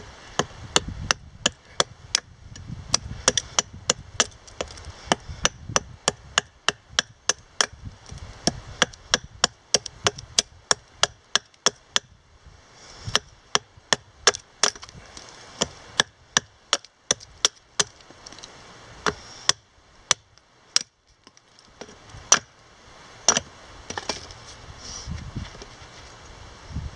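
Hatchet chopping a cedar plank held upright on a wooden stump, hewing off pieces: a long series of sharp strikes about two a second, with a short pause about three-quarters of the way in.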